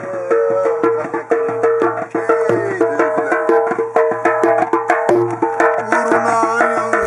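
Music from a hand drum, played with quick rhythmic strokes, under a melody line of held and sliding notes.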